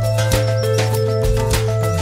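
Background music with a steady beat, held melody notes over a bass line.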